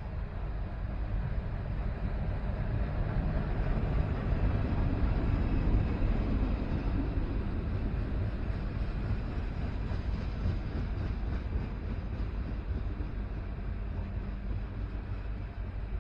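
Southbound CN manifest freight train rolling past: a continuous low rumble of wheels and cars with a steady engine drone under it, swelling about five seconds in and then easing a little.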